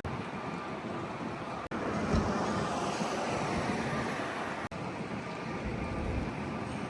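Steady road-traffic and street noise, an even rushing sound with no clear engine note. It cuts out abruptly twice, near two seconds in and again near five.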